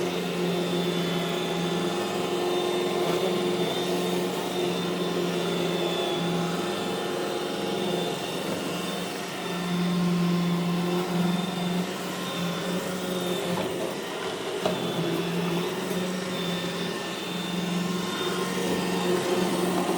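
iRobot Roomba E5 robot vacuum cleaner running: a steady motor hum with a faint high whine, its loudness rising and dipping slightly as it works.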